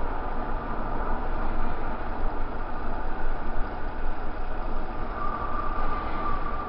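Motorcycle riding through street traffic at speed: a steady rush of engine and wind noise. A steady high-pitched tone joins about five seconds in.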